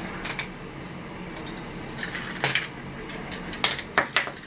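Gravitrax marbles rolling through the plastic track pieces and rails, giving a few sharp clicks and clacks: one about half a second in, one in the middle and a quick cluster near the end.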